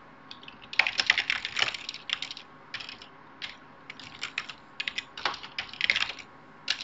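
Typing on a computer keyboard: quick runs of key clicks in irregular bursts, with short pauses between them.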